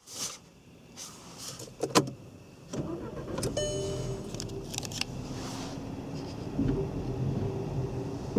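Skoda Octavia II's 1.4 TSI turbocharged petrol four-cylinder, heard from the driver's seat. The key clicks in the ignition, a sharp click comes about two seconds in, then the engine cranks and catches about three seconds in and settles into a steady idle.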